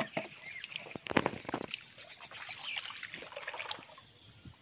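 Pond water sloshing and splashing around a person's legs as they wade through the shallows, in irregular strokes with a louder burst of splashing about a second in.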